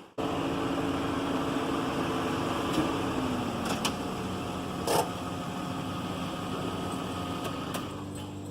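A steady machine hum with a few sharp clicks, about three, four and five seconds in.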